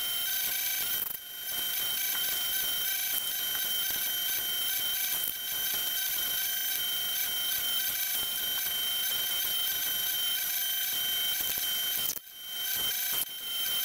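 Ridgid oscillating edge belt sander running steadily as the sides of a small wooden box are sanded against its belt, a constant machine whine over a hiss of abrasive on wood, briefly dropping about a second in and again near the end.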